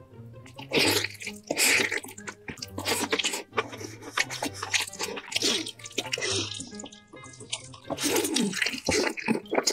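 Wet, sticky close-up eating sounds: saucy braised meat sucked, bitten and chewed, with irregular squelches and slurps.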